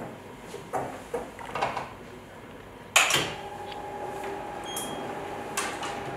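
Light plastic knocks, then one sharp click about three seconds in and a smaller one near the end, as the raised lid and tray cover of an SL200 fully automatic biochemistry analyzer are handled. After the loud click a faint steady hum sets in.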